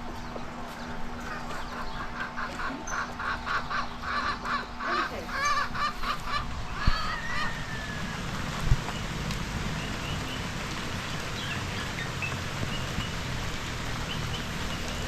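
A bird giving a quick series of repeated loud calls, about two a second for several seconds, then a few faint high chirps.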